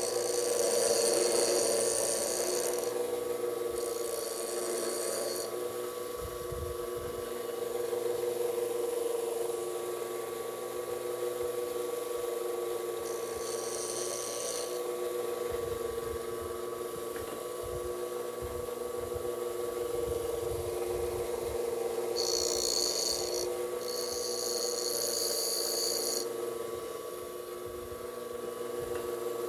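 Bench grinder running with a steady hum while a lathe tool bit in its holder is pressed against the wheel in several separate grinding passes, each a hiss lasting one to three seconds.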